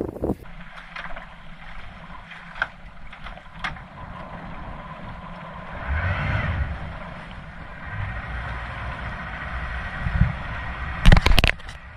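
115 hp Yamaha outboard running slowly as the boat eases up to a mooring ball, with water washing along the hull. A few sharp knocks, the loudest cluster near the end.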